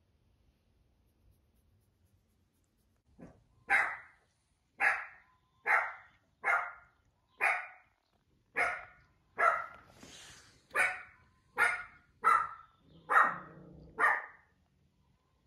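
A small dog barking about a dozen times, roughly once a second, starting a few seconds in.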